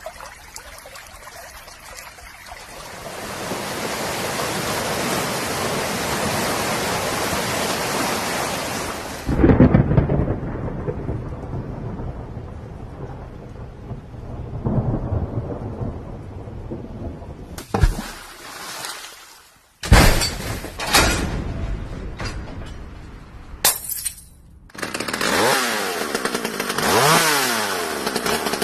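Rain and thunder sound effects: a steady rain hiss, then a heavy rumble of thunder about nine seconds in. Later come several abrupt cuts and short sudden sounds, and near the end a motor-like sound whose pitch glides up and down.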